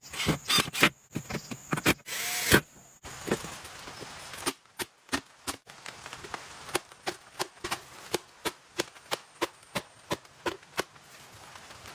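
A hand tool striking wood in sharp knocks and chops, irregular at first with a louder rushing scrape about two and a half seconds in, then settling into a steady run of about three strikes a second.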